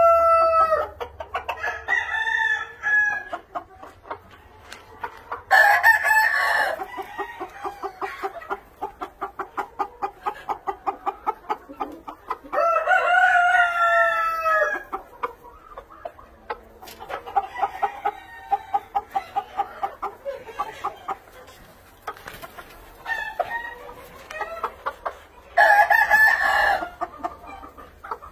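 Dark Aseel chickens: cockerels crowing about five times in long, falling calls, with runs of rhythmic clucking, roughly three clucks a second, between the crows.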